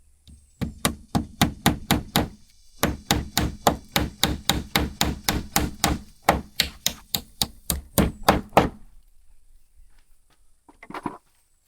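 A hammer driving a nail: a quick run of about thirty sharp strikes, roughly four a second, with one short pause early on, stopping about three-quarters of the way through.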